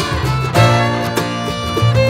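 Music: sustained string notes over a low bass line.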